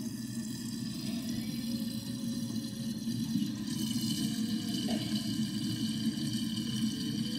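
Water draining out of a stainless-steel kitchen sink, running and swirling steadily down the drain as the basin empties. A brighter hiss joins about halfway through.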